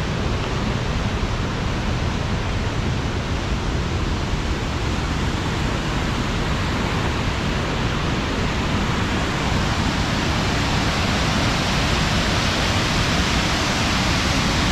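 Steady rush of a waterfall, Ruby Falls, its roar of falling water growing a little louder and brighter in the second half.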